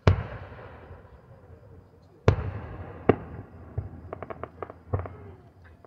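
Aerial firework shells bursting at a distance. A sharp bang comes right at the start and trails off in a long rumble, two more bangs follow a couple of seconds in, then a quick run of about six cracks and one more bang near the end.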